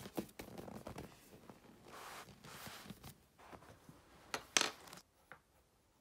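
Thick foam exercise mat being rolled up by hand on carpet: rubbing and rustling of the foam with a few sharp clicks, and a short loud scrape about four and a half seconds in. The handling stops about five seconds in.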